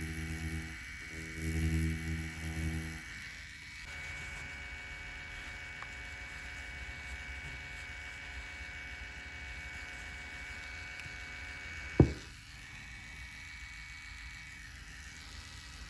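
FK Irons Spectra Flux rotary tattoo pen running with a steady electric hum and whine, heavier in the first few seconds while the needle works the orange's peel. About twelve seconds in there is one sharp click, after which the hum stops.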